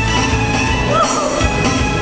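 Loud accompanying music with a steady drum beat, playing for a club-juggling act.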